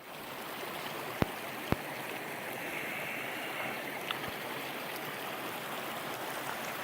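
Steady rushing noise, with two sharp clicks a little after a second in and a fainter click about four seconds in.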